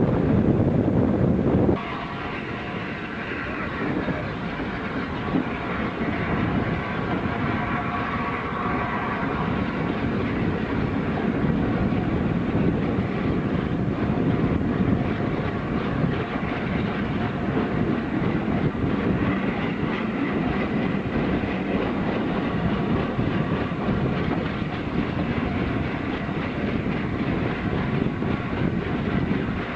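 A train hauled by the steam locomotive 60163 Tornado running along the track, with a continuous rail noise. The sound changes suddenly about two seconds in, from a louder low rumble to a quieter running sound with a faint steady ringing in the upper range.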